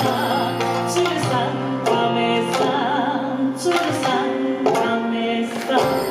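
A woman singing into a microphone, holding long notes, over instrumental accompaniment played through the PA loudspeakers.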